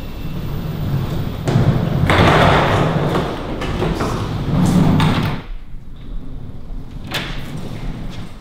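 Lift's sliding steel doors, with a loud noisy rush lasting about three and a half seconds, then quieter room tone and a single sharp click about seven seconds in.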